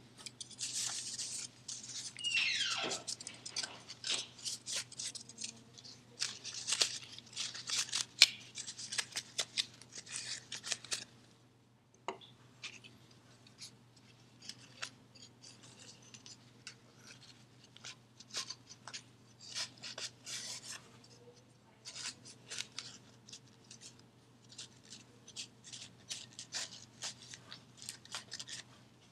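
Plastic clicking, scraping and rubbing from hands working on a smoke detector to clean it. The noise is busy and louder for about the first ten seconds, with a short falling squeak about two seconds in, then goes on as sparser, lighter clicks.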